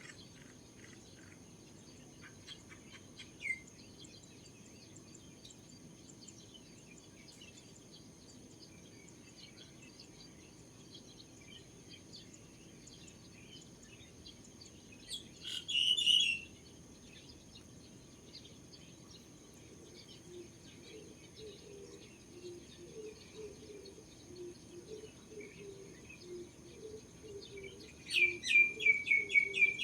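Morning birdsong: many small birds chirping faintly, with one louder call about halfway through and a fast trill of repeated notes near the end.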